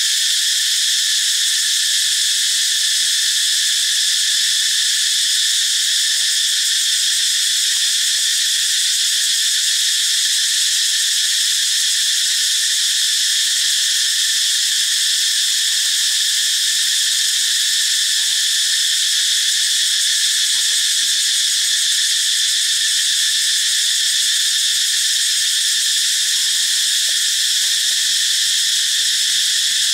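Dense, steady chorus of tropical forest insects, a loud continuous high-pitched drone that never changes. A few faint short calls sound near the end.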